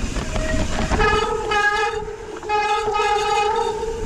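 Mountain bike disc brakes squealing under braking on a rough trail descent: a loud, steady, high squeal that starts about a second in, breaks off briefly around the middle and then returns, over the rattle of the bike on the dirt.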